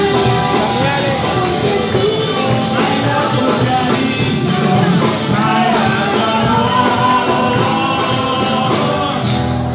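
Live band music with a singer, played loud through the hall's sound system.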